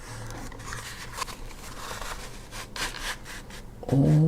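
Close-up handling noise: uneven scraping and rubbing with small clicks as a small pocket knife is handled. A voice begins a drawn-out "oh" just before the end.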